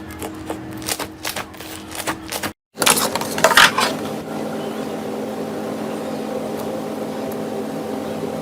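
Slime being worked by hand, giving a run of crackling clicks and pops. It cuts out for a moment about two and a half seconds in, then comes back with louder crackles. After that a steady hum remains with only faint crackling.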